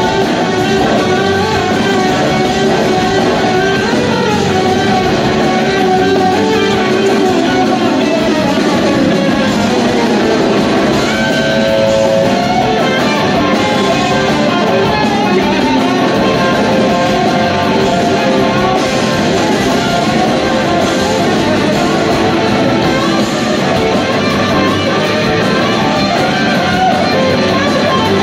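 Live rock band playing an instrumental jam, with electric guitar leading over drums, heard from the audience in a large hall. About twelve seconds in, the guitar holds a few long notes.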